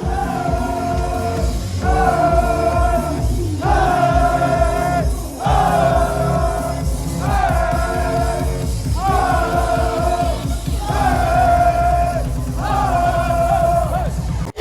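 Loud electronic dance music: a heavy beat under a short melodic phrase that repeats eight times, each about a second and a half long.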